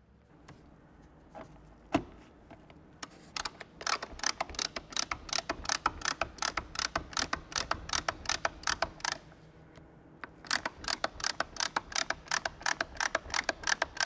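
Hand-operated nutsert (rivet nut) tool clicking as it is worked, a steady run of sharp ratchet-like clicks about four a second that pauses briefly and then starts again.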